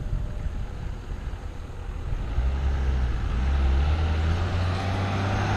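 Wind rumbling on the microphone of a bicycle-mounted camera while riding, with road and traffic noise that grows louder over the second half.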